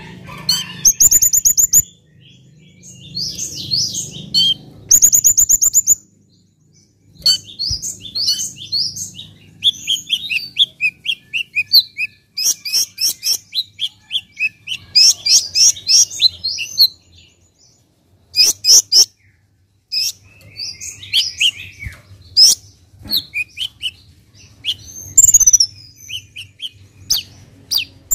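Male kolibri ninja (Van Hasselt's sunbird) singing: fast, high-pitched twittering phrases and rapid trills, broken by short pauses.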